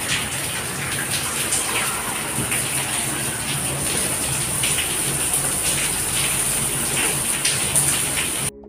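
Heavy monsoon rain pouring down, with water gushing and splashing in a steady rush; it cuts off suddenly near the end.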